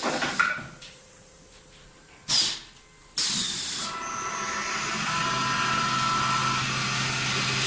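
Automatic CNC wood turning lathe working: two short air hisses, then, a little past halfway, the machine running with a steady hum that slowly grows louder.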